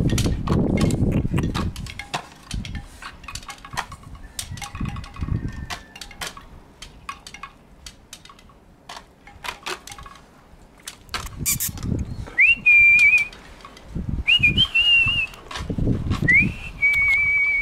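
Three whistled notes in the last third, each a quick upward slide into a held note, the last one longest. Before them, scattered light clicks and rustles.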